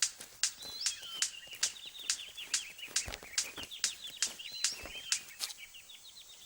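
Superb bird of paradise male's courtship display: sharp clicks about two or three a second, with a rapid, high twittering chatter starting about half a second in.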